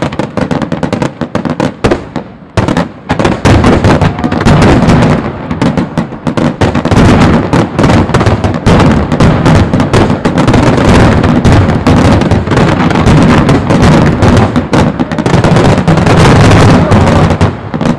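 Star mine fireworks barrage: a dense, very loud run of rapid overlapping bangs and crackles from many shells fired in quick succession. It builds up after a few seconds and eases off near the end.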